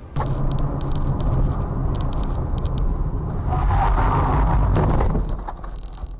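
Car engine and road noise, with a few sharp clicks early on; it swells to a louder rushing sound past the middle for about a second and a half, then drops off.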